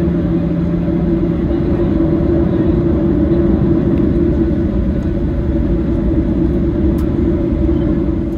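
Steady, loud vehicle rumble with a constant low drone. A lower hum drops out about one and a half seconds in, and the sound cuts off abruptly at the end.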